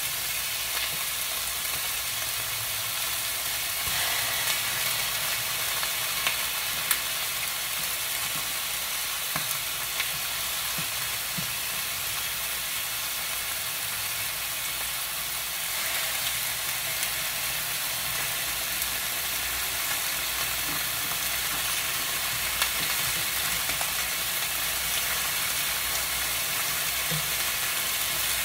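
Chicken pieces frying in hot oil in a pan: a steady sizzle with occasional sharp pops.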